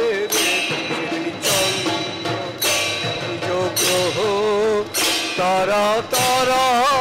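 Bengali kirtan music: khol drums and hand cymbals crashing about once a second under a wavering, wordless melodic line.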